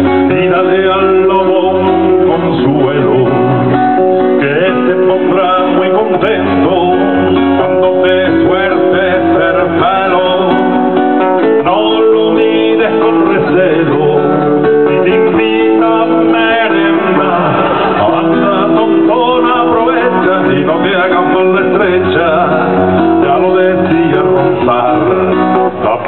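Acoustic guitar played live, a passage of chords and melody notes that runs on steadily.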